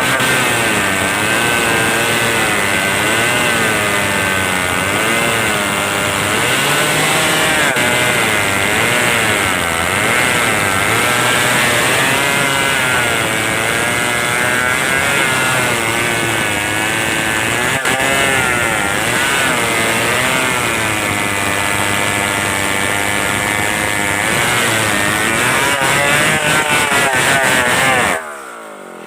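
Stihl 070 two-stroke chainsaw running at high revs while cutting wood, its pitch rising and falling as the chain bogs and recovers in the cut. Near the end the engine drops back sharply.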